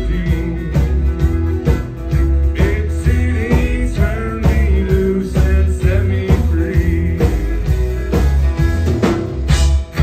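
Live country band playing an instrumental passage: a fiddle plays a sliding, wavering melody over strummed acoustic guitar, electric bass and a steady drum beat.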